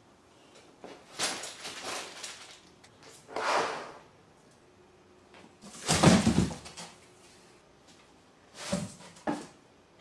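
A cat moving about in cardboard boxes, scraping and rustling against the cardboard and packing paper in several short bursts. The loudest is a thump about six seconds in, and two short knocks come near the end.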